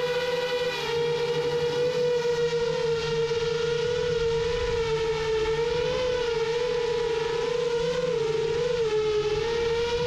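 Rajawali Fold 7 FPV quadcopter's motors and propellers whining steadily in flight, one high tone with several overtones, its pitch wavering slightly up and down, most in the second half.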